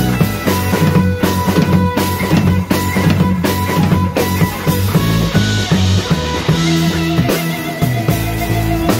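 A live rock band playing: a drum kit and an electric guitar.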